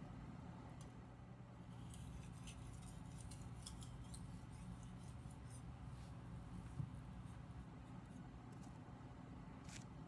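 Faint, intermittent scraping of a Global kitchen knife's steel edge stroked across a fine-grit Japanese water stone held in the hand, a quick run of strokes in the middle and one more near the end. A single soft knock comes about two-thirds of the way through.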